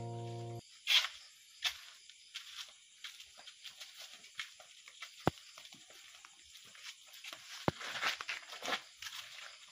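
A held music chord cuts off just after the start. Then faint, irregular footsteps and scuffing of several people walking on a paved path, with two sharp clicks in the middle.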